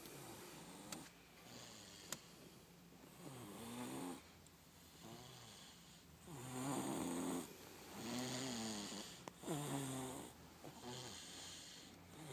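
A sleeping person snoring very loud: a string of pitched snores, each about a second long and coming every one to two seconds, with the loudest about six to seven seconds in.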